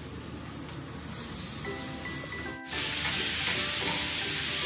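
Minced beef sizzling as it fries in a pan, a steady hiss that gets louder after about two and a half seconds, with faint background music.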